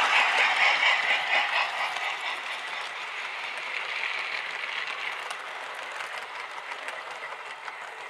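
00 gauge model train running on the track, a steady rolling rattle of wheels on rail with light clicks, fading as the train moves away.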